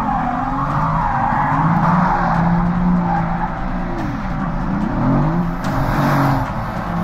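Mercedes-AMG GT's V8 held at high revs while its rear tyres spin and squeal through donuts, the engine note wavering and dipping before climbing back about four to five seconds in.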